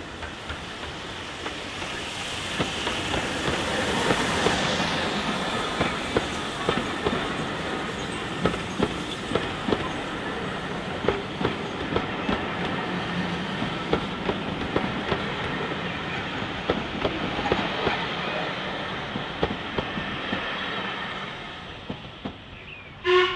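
Steam tank engine and its train of coaches passing close by. The engine's noise builds over the first few seconds, then the coach wheels click over the rail joints in a steady rhythm as they roll past and fade away. A brief loud toot near the end.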